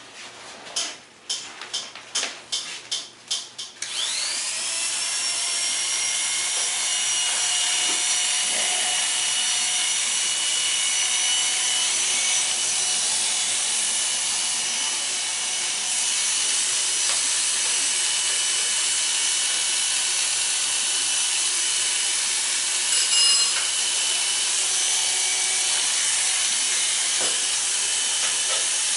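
Corded electric hair clippers switch on about four seconds in, after a few clicks and knocks, and then run with a steady, even buzz while being used close on the side of the head.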